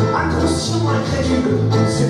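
Live folk-chanson band playing: acoustic guitar and keyboard over a low bass line of repeated notes about half a second long, with a light hissing high rhythm on top.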